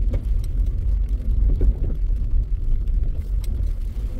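Low, steady rumble of a vehicle driving slowly along a muddy dirt road, heard from inside it, with a few light knocks.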